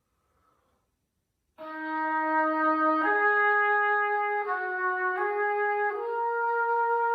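Solo oboe playing a slow melody of long held notes, entering after about a second and a half of near silence and stepping to a new pitch roughly every second.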